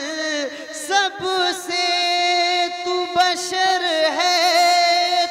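A man singing a naat in a single voice, drawing out a wordless phrase with wavering ornaments and then holding long, steady notes.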